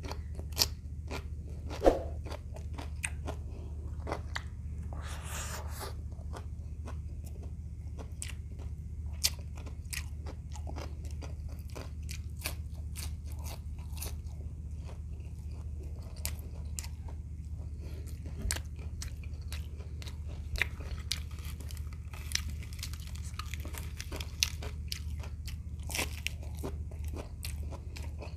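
Close-miked eating: a person biting and chewing crunchy food, starting with a pickle slice, in irregular crunches and wet mouth clicks. A steady low hum runs underneath.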